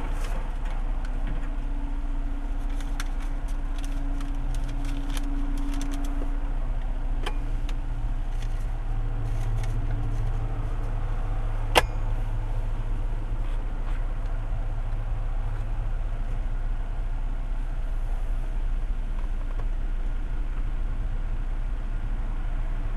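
Car engine idling, heard from inside the cabin as a steady low hum. Small clicks and rattles from handling a card and receipt come in the first six seconds, and one sharp click sounds about twelve seconds in.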